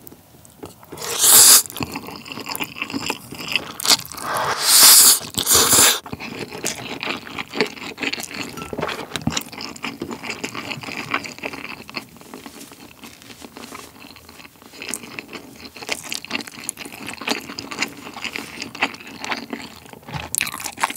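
Close-miked eating sounds of spicy Buldak instant noodles: loud slurps of the noodles about a second in and again around four to six seconds in, then continuous wet chewing with small mouth clicks and smacks.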